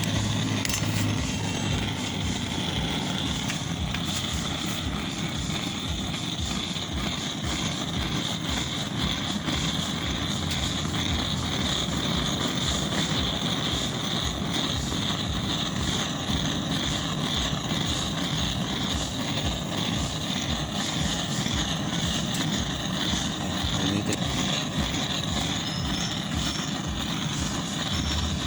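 A gas torch burning with a steady, rushing flame noise that does not change for the whole stretch.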